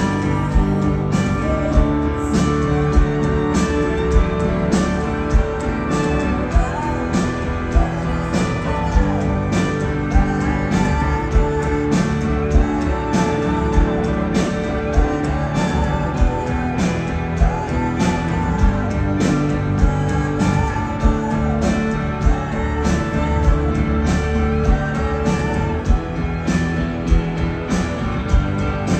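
A live indie rock band playing a song: a steady drum beat under electric guitar and bass, with violin and cello.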